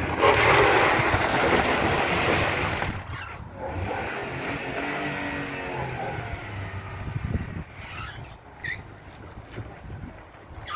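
A car driving past, loud for the first three seconds and then fading to a quieter engine sound.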